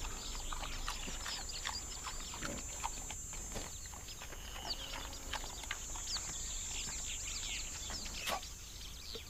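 Warthogs grazing, with soft grunts and snuffles, amid bush ambience: many short bird chirps over a steady high-pitched drone.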